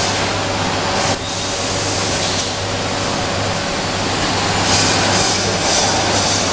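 Automatic vertical liquid sachet packing machine running, forming, filling and sealing milk pouches: a steady mechanical noise over a constant low hum.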